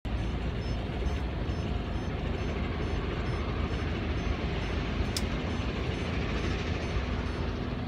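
Motor cruiser under way on a river: its engine running steadily as a low rumble mixed with water and wind noise, with one sharp click about five seconds in.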